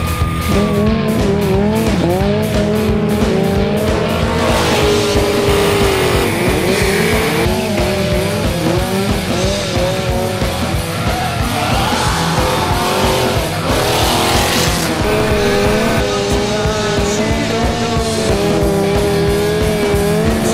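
Triumph Speed Triple motorcycle engines and a Ford Mustang Cobra revving up and down, with bursts of tire squeal from the drifting machines, over background music with a steady beat.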